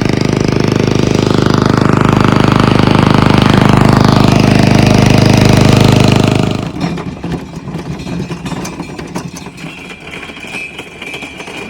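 Ride-on lawnmower engine running loudly and steadily, while the rider thinks its belt has come off. The engine sound stops abruptly a little over halfway through, leaving a quieter, uneven rumble.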